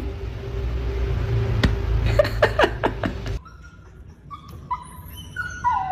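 A dog whining in short, high, wavering whimpers that begin about four seconds in and grow louder toward the end. Before that there is a steady low rumble with a few sharp clicks, which cuts off abruptly about three seconds in.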